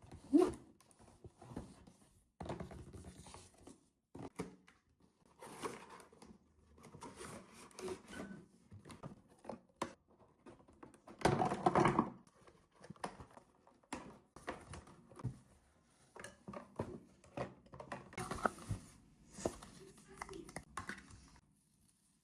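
Toy packaging being opened by hand: tearing, rustling and cutting of cardboard and wrapping in irregular bursts, with small knocks. The loudest stretch comes about halfway through.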